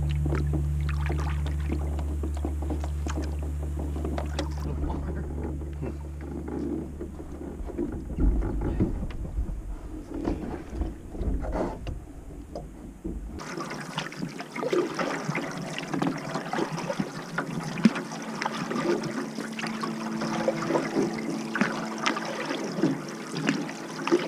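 Canoe paddling on open water: irregular paddle splashes and drips. Sustained low music notes die away over the first several seconds, and the background changes abruptly about halfway through.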